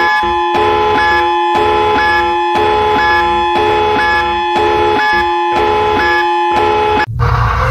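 Synthesized Emergency Alert System-style alarm: steady electronic tones under a pattern of beeps that repeats about once a second. Near the end it cuts off abruptly and a siren starts, rising in pitch.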